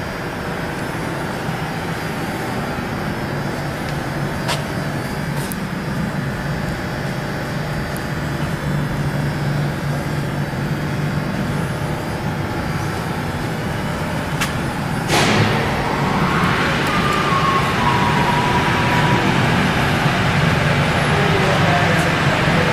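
Electric drive of a P&H welding positioner running steadily with a low hum. A sharp click comes about fifteen seconds in, after which the running is louder.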